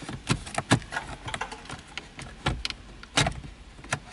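Irregular clicks and knocks of a 1999 Nissan Altima's climate control unit being wiggled and pried by hand to free it from the dashboard, with a louder knock about three seconds in.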